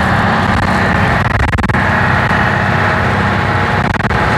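Leyland double-decker bus engine running steadily as the bus drives along, heard from inside the bus: a continuous low drone with frequent small rattles.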